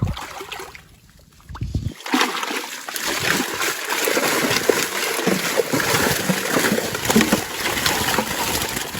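Fish thrashing and splashing in a fish trap as it is hauled out of pond water. The splashing sets in about two seconds in and goes on as a dense, crackling churn of water.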